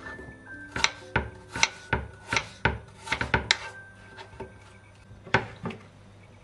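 A kitchen knife dicing peeled apple on a bamboo cutting board: a quick run of sharp chops, about three a second, for the first few seconds, then two more after a pause near the end.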